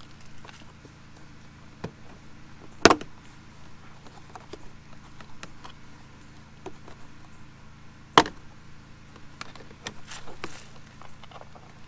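Plastic car interior trim panel being pried loose by hand: light rattling and ticking, with two sharp snaps about three seconds in and again about eight seconds in as the panel pops free of its clips.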